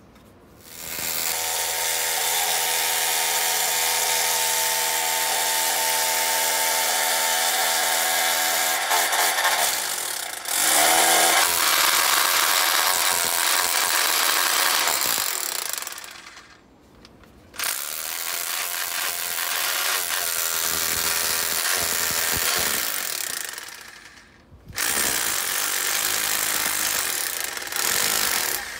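Makita hammer drill on hammer-only setting hammering a copper earth rod down into the ground, in three long steady runs with two short pauses, the first about sixteen seconds in and the second near 24 seconds.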